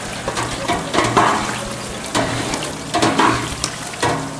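Fish cakes deep-frying in hot oil, a steady sizzle with irregular clicks and knocks from utensils.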